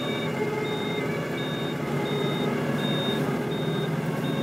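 Steady car engine and road noise heard from inside a moving car, with a short, high electronic beep repeating evenly about three times every two seconds.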